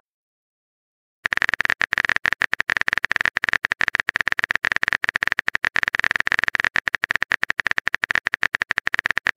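Texting-app keyboard typing sound effect: a rapid, continuous run of short clicks that starts about a second in, sounding while the next message is being typed.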